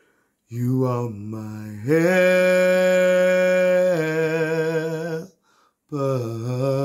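A man singing a cappella, with no accompaniment: a phrase that climbs into one long held note, steps down to a lower note and stops, and a new phrase begins near the end.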